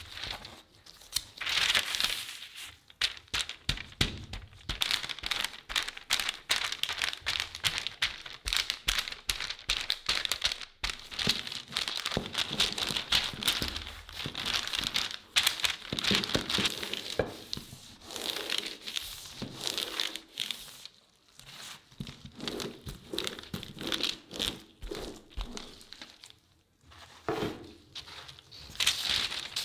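Parchment paper crinkling and rustling as tart dough is pressed flat by hand and then rolled out between two sheets with a rolling pin: a dense, irregular run of small crackles, briefly quieter near the end.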